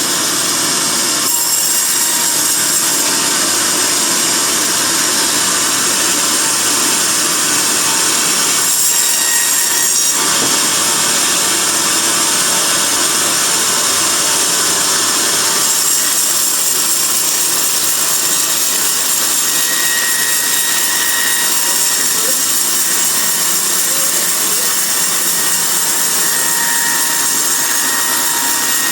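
Band sawmill blade cutting lengthwise through a rotten teak log: a loud, steady, hissing saw noise with a brief change in tone around the middle.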